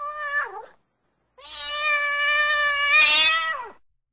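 A cat meowing twice: the tail of a short meow that bends down in pitch, then a long, drawn-out meow lasting about two and a half seconds that drops in pitch at the end.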